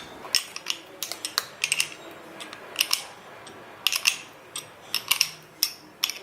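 Metal wrench clinking against the pedal and crank while the new pedal is tightened: irregular sharp metallic clicks, a few at a time, with brief ringing.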